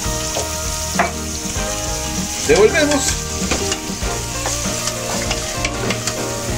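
Sliced onion frying in hot oil in a pot, sizzling steadily while a wooden spoon stirs it, with a few knocks of the spoon against the pan.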